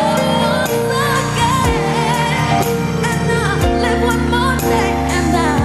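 Female pop singer singing live with a band, her voice wavering and gliding between notes over held chords and a bass line.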